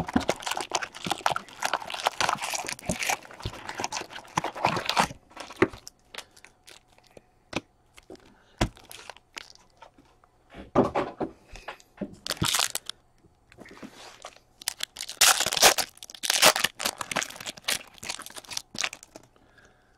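Foil-wrapped O-Pee-Chee Platinum hockey card packs crinkling and tearing as they are taken out of their cardboard box and one is ripped open. The crackling comes in irregular bursts, densest in the first few seconds and again near the end.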